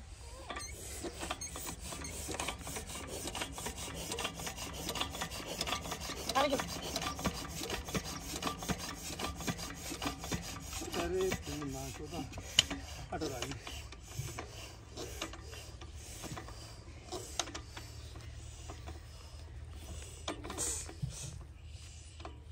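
Single-cylinder stationary diesel engine, rated 12 hp, being hand-cranked to start: a fast, continuous clatter of mechanical clicks and rasping that thins out after about 14 seconds.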